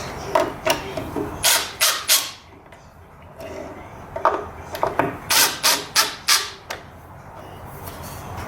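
Short, sharp scraping strokes against wood: a run of about six, a pause of roughly two seconds, then a run of about eight more.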